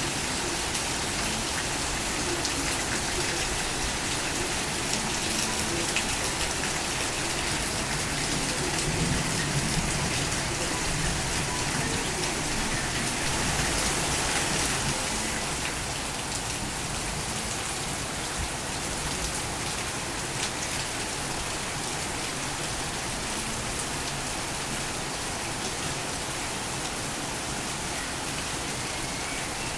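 Torrential rain falling steadily, a dense hiss of drops hitting surfaces, a little heavier for a few seconds around the middle before easing slightly.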